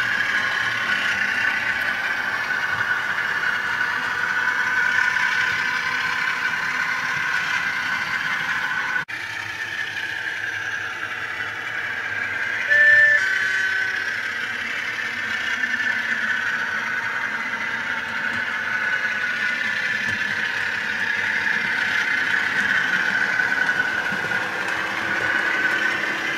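Bachmann Class 47 OO-gauge model diesel locomotive running on the layout track: a steady whir of motor and wheels that slowly rises and falls. About thirteen seconds in there is a short, louder two-note horn sound, higher then lower.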